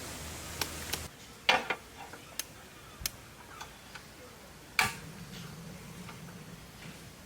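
A scattered series of light clicks and knocks from small hard objects being handled, about eight in all; the two loudest come about a second and a half in and just before five seconds in.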